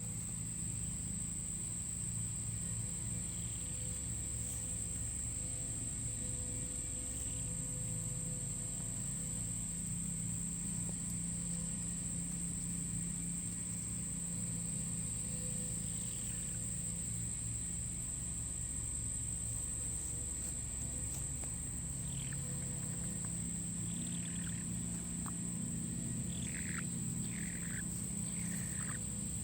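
Sleeping silkie chicken making soft, short falling peeps, a few spread out and several close together in the last few seconds, over a steady high-pitched whine and a low hum.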